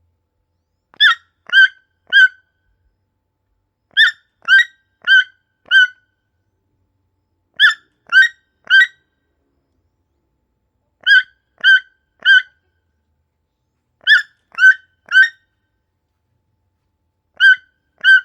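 Toucan calling: groups of two to four short, sharp calls in quick succession, a group every three to four seconds.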